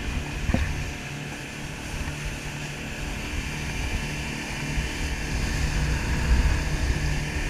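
Twin 150 hp outboard motors running at cruising speed, a steady low drone, with the hiss of water rushing past the hull.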